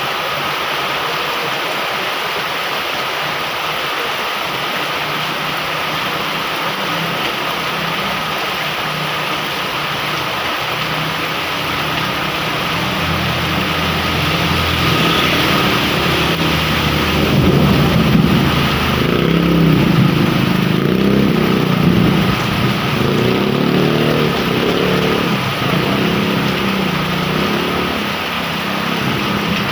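Heavy rain falling steadily, with a motor vehicle's engine growing louder from about the middle, loudest about two-thirds of the way through, then fading near the end as it passes.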